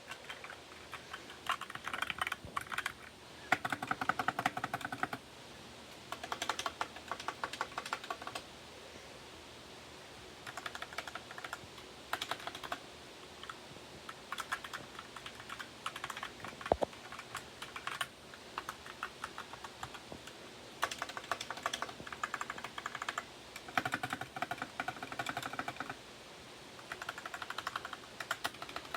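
Computer keyboard being typed on in bursts of fast keystrokes with short pauses between them. The owner holds that the keyboard sounds bad.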